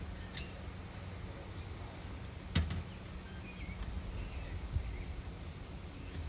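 A single sharp knock about two and a half seconds in, with two lighter clicks, over a steady low rumble; a few faint bird chirps.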